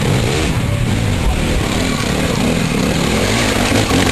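Enduro motorcycle engine revving, rising and falling in pitch, loudest near the end as a bike passes close.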